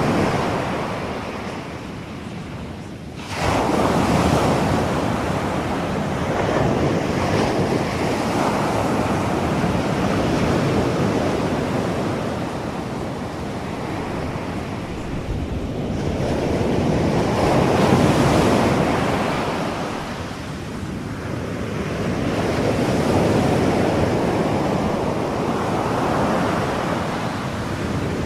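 Ocean surf, waves washing in and receding, the noise swelling and fading every several seconds, with a sudden jump in loudness about three seconds in.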